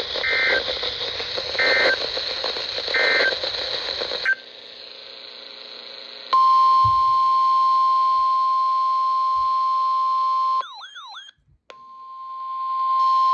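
Three short bursts of EAS/SAME end-of-message data tones, a little over a second apart, over radio hiss. After a cut, a steady single-pitch NOAA Weather Radio alert tone starts about six seconds in. It is broken near the ten-second mark by about a second of warbling, sliding tones, then comes back.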